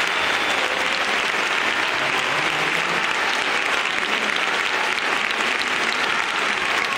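Large audience applauding, steady and dense clapping that keeps up without a break.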